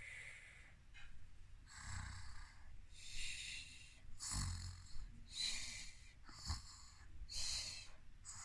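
A person making pretend snoring sounds: breathy, hissing in-and-out breaths, about one a second.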